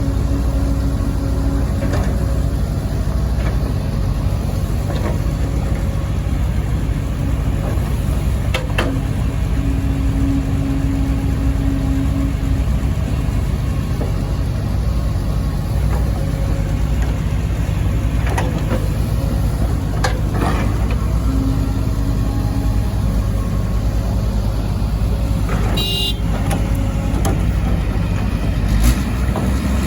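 Kobelco SK140 excavator's diesel engine running steadily under working load, with a few sharp metallic clanks and a brief high squeal or toot about 26 seconds in.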